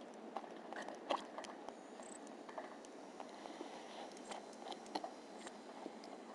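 Pygmy marmosets moving about and feeding in a plastic treat toy: scattered faint clicks and taps of small hands, feet and mouths on hard plastic, over a steady low hiss, with a sharper tap about a second in.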